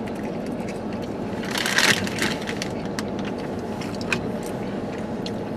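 Eating a burrito: scattered small clicks of chewing and handling, with one brief, louder rustle, like crushing, about two seconds in. Under it runs a steady low rumble.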